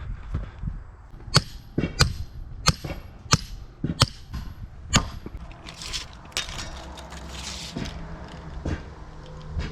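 Six sharp blows of a hand tool striking the ground, about one every two-thirds of a second, followed by a few seconds of scraping. A low steady engine hum comes in near the end.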